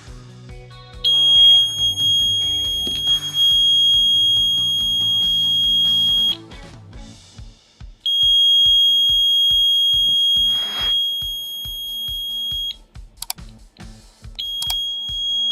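An alarm circuit's buzzer sounding a steady high-pitched tone in three long stretches, about five seconds, then about four and a half seconds, then again near the end, as the alarm is set off. Background music with a steady beat plays underneath.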